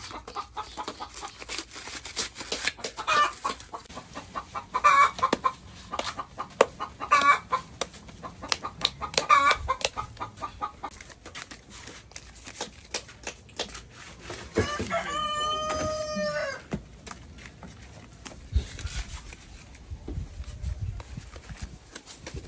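Dry corn husks crackling and tearing as they are stripped from ears of corn. Chickens cluck in short calls about every two seconds, and a rooster crows loudly once, a little past halfway.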